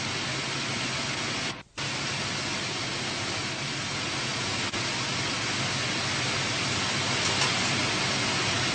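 Steady factory-floor din of an engine assembly shop: an even hiss with a faint low hum beneath it, cut by a brief dropout to near silence about a second and a half in.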